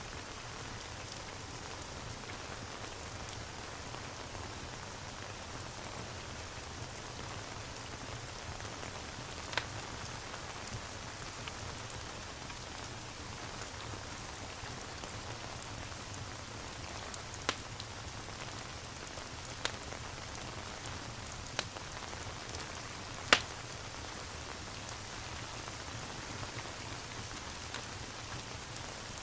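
Steady rain falling, with a handful of sharp isolated pops from a crackling wood fire, the loudest about two-thirds of the way through.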